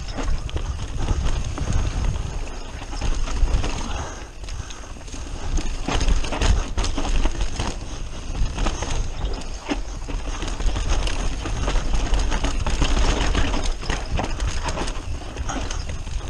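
Mountain bike running fast downhill over a rough, rocky dirt trail, heard from an on-board camera: tyres crunching over dirt and stones, with the bike rattling and knocking irregularly, and wind buffeting the microphone as a constant rumble.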